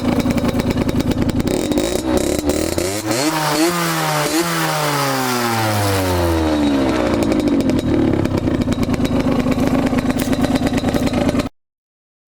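Aprilia SX 50's two-stroke 50 cc engine idling, then revved in a few quick blips about three seconds in, its pitch sliding back down to idle. The sound cuts off abruptly near the end.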